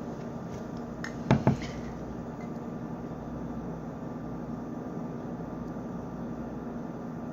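Steady low hum of room noise, broken once about a second and a half in by a brief short sound in two quick parts.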